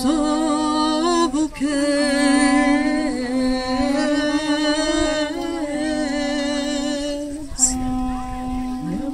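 Armenian duduks playing in ensemble: a slow melody over a steady held drone note, the drone dropping out briefly twice.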